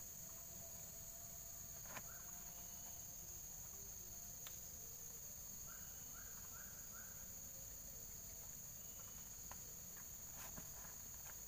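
Steady high-pitched insect chorus of crickets, with a quick run of four bird chirps about six seconds in and a few faint clicks.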